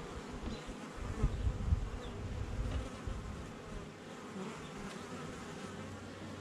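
Honey bees buzzing steadily around an open hive, with a few low bumps between about one and two seconds in as a hive box is set back in place.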